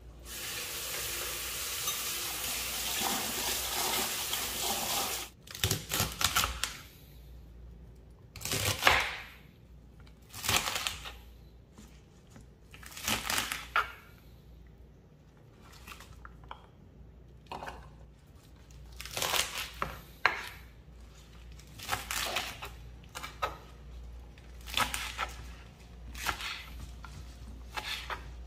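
Kitchen tap running for about five seconds while water spinach is rinsed under it, then a knife chopping the stalks on a wooden cutting board in irregular strokes and short clusters.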